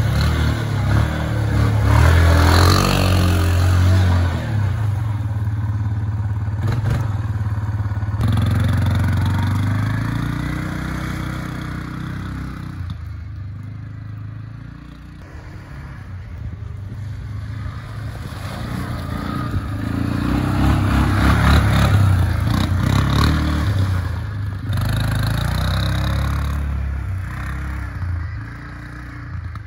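Yamaha Kodiak ATV's single-cylinder four-stroke engine revving hard, with spinning tyres throwing snow and dirt. The engine then runs on as the quad rides away. It fades, comes back louder about two-thirds of the way through, and fades again near the end.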